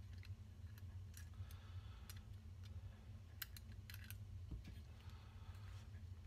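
Faint small metal clicks of a hex key working the screws out of a rifle's scope base rail, scattered, with a few close together about four seconds in. A steady low hum runs underneath.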